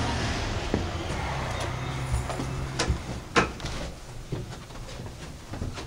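Footsteps of several people walking through a narrow stairwell, with scattered sharp knocks, the loudest about three and a half seconds in. A low rumble runs under the first three seconds.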